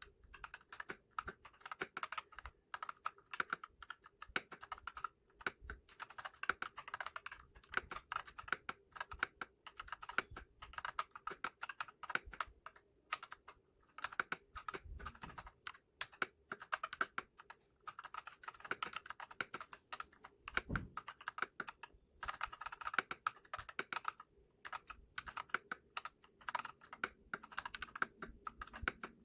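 Typing on a Redragon K596 Vishnu mechanical keyboard with Akko CS Lavender Purple tactile switches and HyperX PBT pudding keycaps. Quick runs of key clacks come in bursts with short pauses between them.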